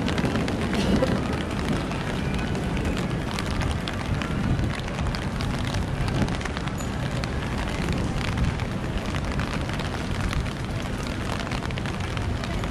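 Steady rain: a dense patter of small drop ticks on wet paving, over a low street rumble.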